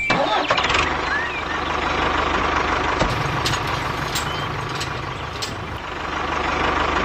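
Small motor of a DIY miniature construction machine (model tractor or road roller) running steadily, with a low rhythmic pulse, a steady whine and a few sharp clicks.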